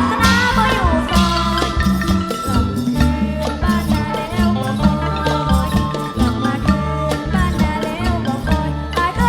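Isan folk music from a pong lang band: an instrumental passage with a steady bass line under melody instruments and shaken percussion.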